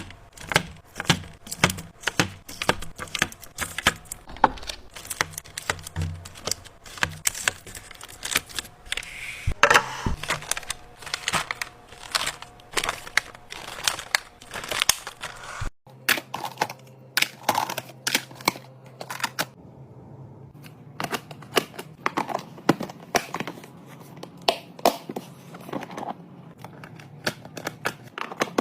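A run of irregular clicks, taps and crinkles as plastic food containers and their packaging are handled. The sound breaks off abruptly about halfway through, then continues over a faint steady hum.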